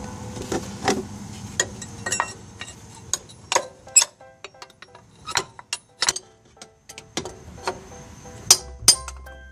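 Hammer tapping a steel pry bar wedged behind an A/C compressor clutch pulley to work the pulley off, with sharp metal clinks coming irregularly, about two a second.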